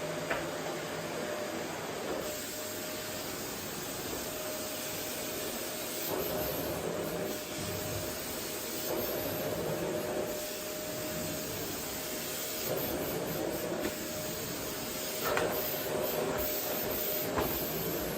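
Vacuum cleaner running, a steady rush of air with a thin high whine over it, swelling and easing every few seconds. A few light knocks come through, one right at the start and two near the end.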